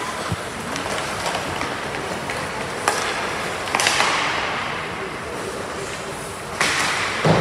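Ice hockey play on the rink: skates scraping the ice and sticks clacking. There is a sharp click about three seconds in, and two louder scraping rushes, one around four seconds and one near the end.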